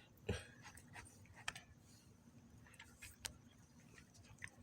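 Near silence, broken by a soft thump about a third of a second in and two or three faint sharp clicks.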